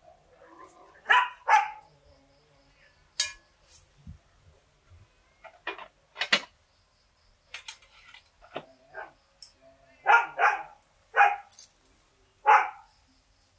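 A dog barking in short single barks, twice about a second in and four times near the end, with a few sharp knocks in between.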